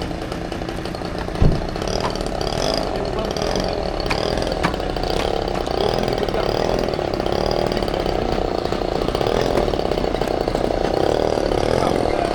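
RC model airplane's motor running with a steady, wavering buzz, and a sharp knock about one and a half seconds in.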